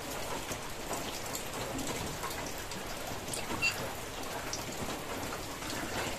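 Steady rain pattering on a corrugated roof: an even hiss with scattered small drop ticks.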